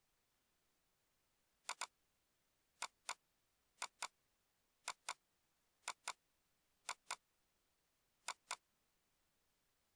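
Computer clicking: seven pairs of sharp clicks, the two clicks of each pair a fifth of a second apart, about one pair a second, over near silence.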